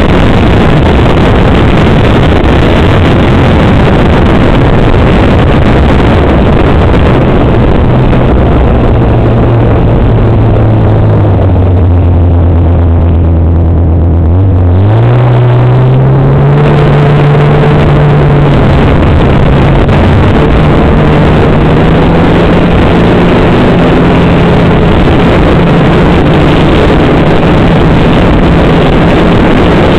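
Snowmobile engine running at speed under a loud rush of wind noise on the microphone. About a third of the way in the engine slows almost to idle and the rush dies away, then around halfway it revs back up with a rising pitch and holds steady.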